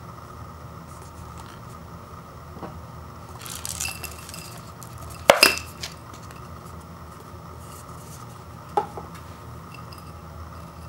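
Paper cup rustling, then a sharp clatter on a small ceramic plate about five seconds in as a dried instant-noodle block is tipped out of its cup. A few lighter knocks follow, and there is one more light clink about three seconds later.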